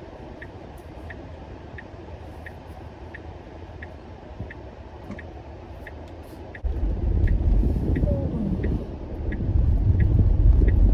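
Car turn signal ticking about twice a second inside the cabin over a low engine rumble; about two-thirds of the way through, the engine and road rumble jumps much louder and stays up.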